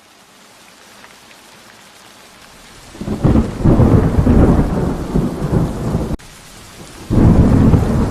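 Steady rain, then loud thunder rumbling from about three seconds in. The rumble breaks off abruptly about six seconds in and starts again a second later.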